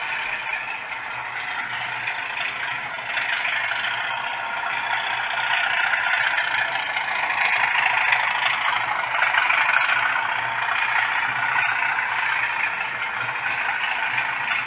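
Model train, a diesel locomotive with coaches, running along the track, its wheels clattering over the rails with a whirring rattle. It grows louder as the train passes close, loudest from about six to ten seconds in.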